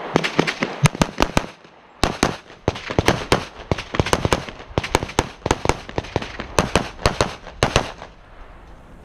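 Rapid semi-automatic pistol fire from a USPSA Limited-division handgun: shots in quick pairs and strings, a short break about a second and a half in, then steady shooting that stops near the end.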